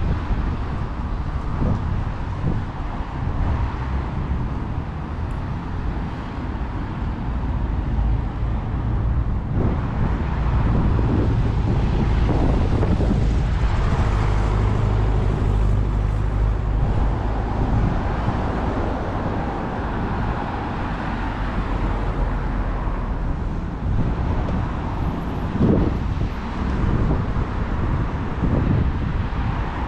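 Road traffic going by, with wind buffeting the microphone. A vehicle's engine hum grows louder through the middle and then fades.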